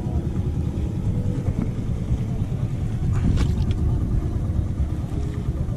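Small 7 hp Golden Horse outboard-style marine engine running steadily at low speed, a continuous low rumble. A brief splash of water sounds a little over three seconds in.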